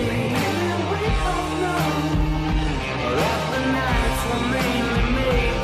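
Background music: a song with a singer over a steady band.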